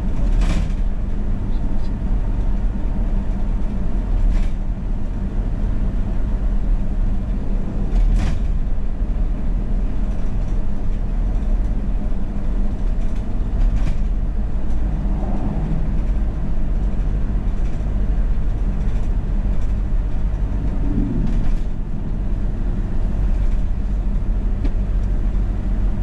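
Steady low road and engine rumble inside a car's cabin at expressway speed, with a few brief knocks spaced several seconds apart.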